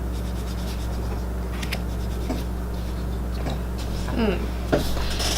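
Playing cards being handled on a table: soft rubbing and sliding with a few light ticks.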